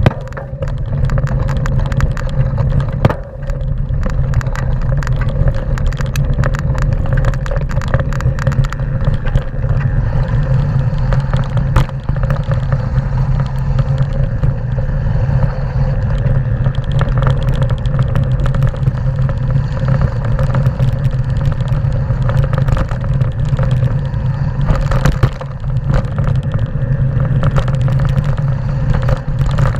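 Mountain bike riding fast down a loose slate and gravel trail: a steady low rumble of tyres and wind on the microphone, with many small clatters and knocks as the bike rattles over the stones.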